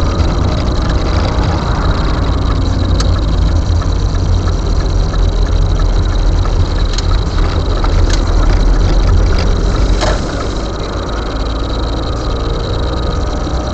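Moving car heard from inside the cabin: a steady low engine and road rumble, easing off a little about ten seconds in, with a few faint clicks.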